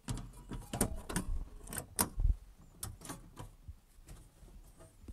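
Clicks and knocks of camper cabinet panels and their round knob latches being closed and worked, with a dull low thump a little after two seconds in.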